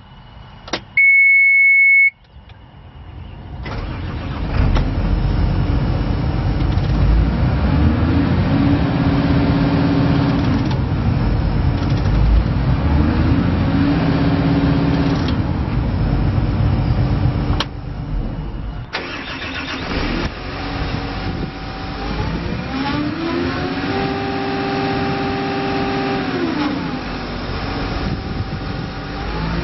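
Caterpillar 320DL excavator: a loud steady beep for about a second, then its C6.4 diesel cranks, starts and runs. Whining tones rise, hold and fall back several times as the hydraulics are worked.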